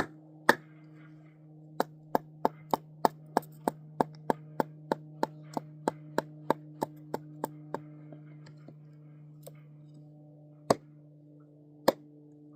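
Kindling being chopped, most likely with a hatchet: a quick, even run of sharp strikes about three a second, then a few single strikes spaced farther apart near the end. A steady low hum runs underneath.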